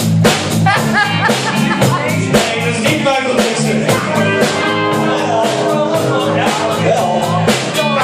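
Live blues-rock trio playing: electric guitar over bass guitar and drum kit, with a steady drum beat.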